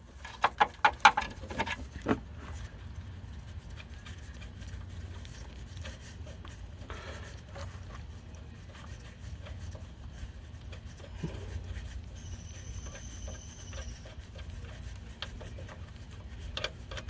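A hand ratchet on a socket clicking in quick strokes during the first two seconds while the compressor bolts are backed out, then a low steady background rumble with faint scrapes and knocks of tools on metal. A thin, high, steady tone sounds faintly for about two seconds near the end.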